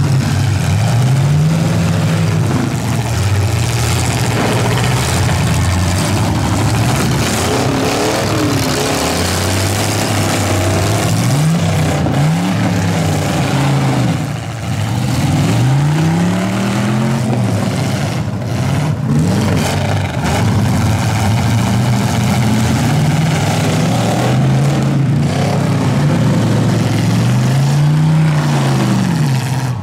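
Several demolition derby pickup trucks' engines revving hard and dropping back, over and over, against a loud steady din.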